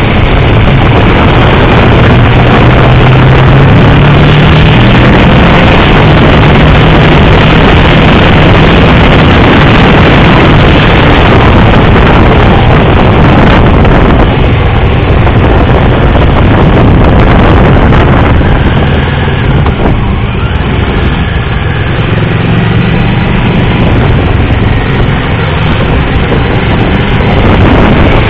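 Motorcycle engine running at track speed, its pitch climbing and dropping with the throttle, under a loud rush of wind on the onboard microphone. It eases off for a stretch about halfway through and picks up again near the end.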